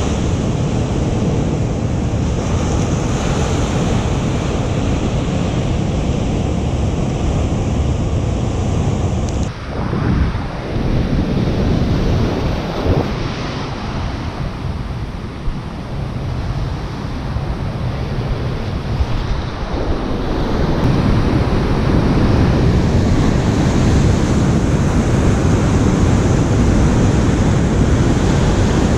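Ocean surf washing on a beach, with wind buffeting the microphone. The sound shifts abruptly about ten seconds in and again about twenty seconds in.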